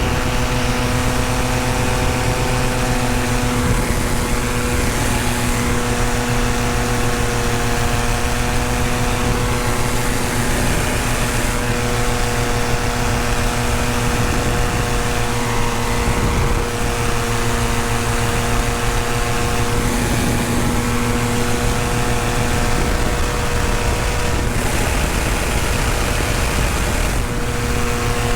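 Tandem paramotor's engine and propeller running at a steady cruise setting: a constant, unchanging drone.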